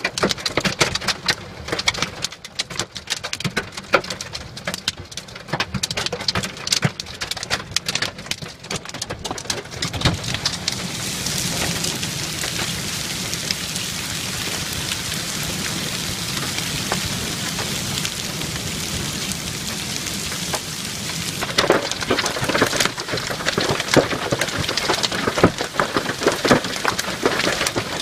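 Heavy rain and hail: for the first ten seconds hailstones and big drops strike a hard surface as many sharp clicks. About ten seconds in it turns into a steady rush of downpour, and the sharp hits come back thick near the end.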